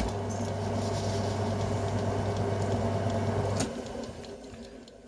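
Small bench metal lathe switched on with a click, its motor and spindle running with a steady hum while it takes a thread-cutting pass. About three and a half seconds in it is switched off with a click and runs down.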